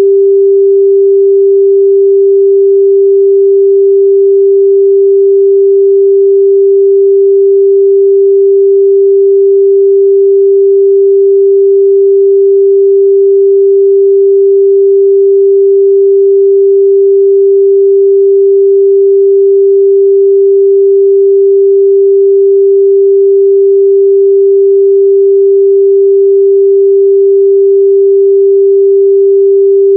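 A steady, loud 394 Hz sine-wave test tone, one pure pitch held without change.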